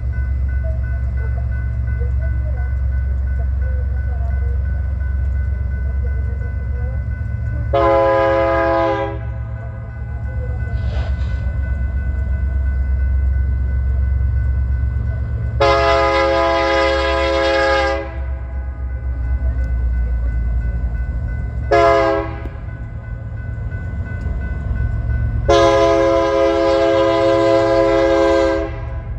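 Diesel locomotive's multi-chime air horn sounding the grade-crossing signal: two long blasts, a short one and a final long one, the warning of a train approaching a road crossing. The crossing's warning bell rings steadily beneath, over a low rumble.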